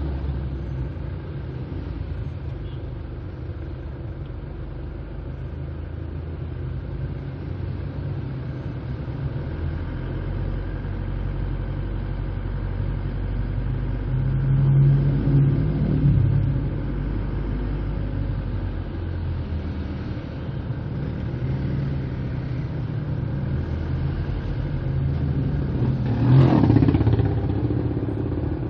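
Steady low engine rumble of slow-moving road traffic close behind a truck, with motorcycles around. The engine noise swells briefly about halfway through and surges louder near the end.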